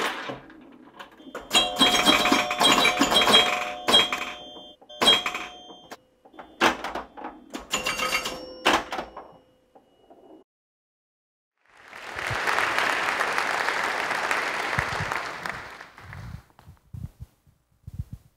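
An intro jingle made of a run of sharp, chime-like hits with ringing tones over the first ten seconds. After a short pause an audience applauds for about four seconds, followed by a few faint knocks.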